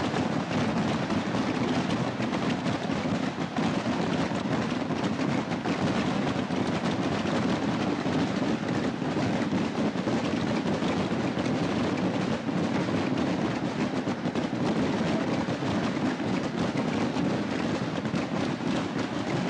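Voladores (Asturian gunpowder rockets) fired en masse: a dense, unbroken crackle of launches and bangs at an even level.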